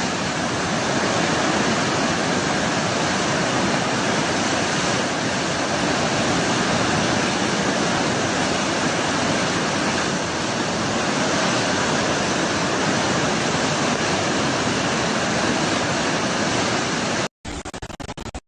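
Loud, steady rush of storm water, heavy rain or floodwater. It cuts off suddenly near the end, giving way to a quieter, choppier stretch.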